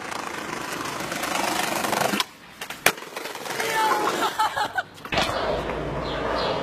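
Skateboard wheels rolling over paving and growing louder, then cutting out as the board leaves the ground. A single sharp clack of the board hitting down comes a little under three seconds in, then brief voices. After that, skateboard wheels rolling again from about five seconds in.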